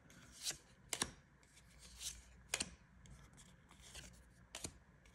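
Trading cards flipped through by hand, each card slid off the stack with a short sharp flick of card stock, three or four times over faint rustling.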